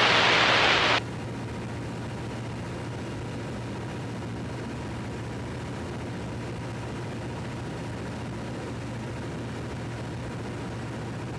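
A loud hiss of radio static for about the first second, cutting off suddenly, then the steady low drone of a Piper PA-17 Vagabond's Continental A-65 four-cylinder engine and propeller heard in the cockpit on final approach.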